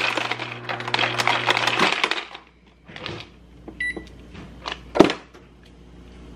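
Refrigerator door ice dispenser running: a motor hum with ice cubes clattering into a plastic cup, both stopping about two seconds in. After that come a few loose knocks, a short beep, and one sharp knock about five seconds in.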